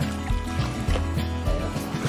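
Music with held tones over a regular low beat.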